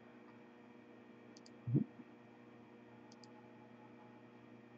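Computer mouse double-clicking twice, about two seconds apart, over a steady low electrical hum, with one brief low voice sound just before the second click.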